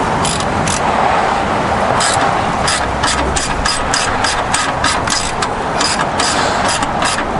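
Socket ratchet clicking in short quick bursts, about three or four a second from about two to three seconds in, as a bolt on the go-kart's rear rack is worked loose. Underneath runs a steady rushing background noise.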